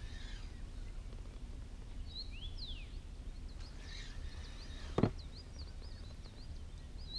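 Small birds calling in short, quick sweeping chirps, repeated through the second half, over a low steady background rumble. A single sharp knock about five seconds in is the loudest sound.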